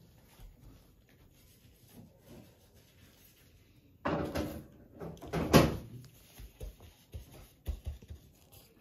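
Faint room tone, then about four seconds in a sudden burst of household clatter and knocks, like a drawer or cupboard being handled, loudest about a second and a half later, followed by a few scattered light knocks.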